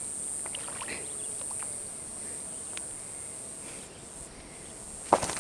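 Water dripping and trickling from a landing net holding a caught carp, with light rustling and small ticks, then one sharp knock about five seconds in.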